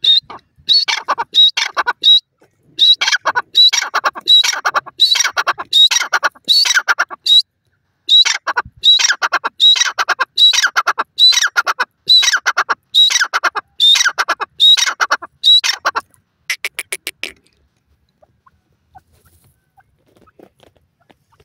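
Grey francolin calling loudly: a rasping note repeated over and over, the notes often in quick pairs, for about sixteen seconds before it stops.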